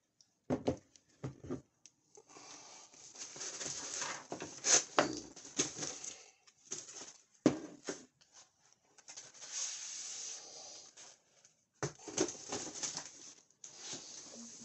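Handling noise of RC truck wheels with knobby rubber tyres: irregular knocks as the wheels are lifted out and set down on a table, between stretches of rustling and scraping of a cardboard box.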